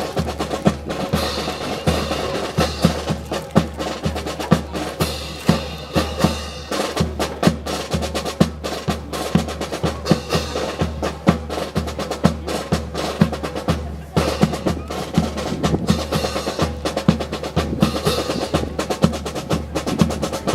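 Brass band playing march music with snare drums and a steady low drum beat about twice a second, laced with many sharp wooden clacks.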